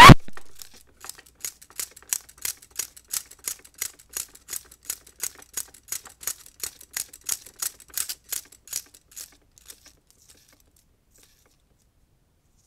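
Music cutting off with a short rising sweep, then film projector run-out clicking: the loose tail of the film flapping against the spinning reel, about three even clicks a second, fading away.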